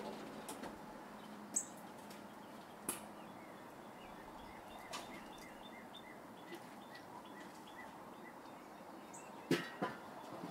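A bird giving a run of short, evenly spaced chirps, about three a second, over faint background noise. A few sharp clicks fall here and there, the loudest near the end.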